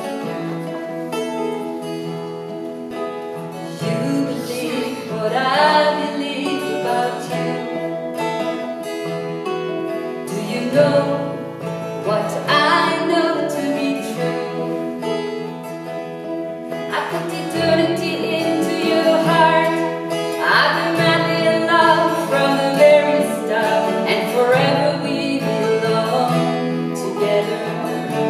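Two acoustic guitars played together, with a voice singing a melody over them in phrases.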